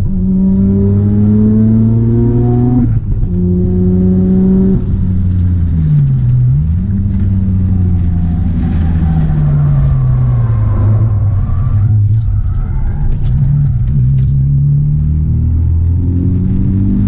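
Mazda RX-7's rotary engine under hard track driving. It revs up through two gear changes, each upshift dropping the pitch. Through the middle the revs fall away as it slows, then they climb again near the end.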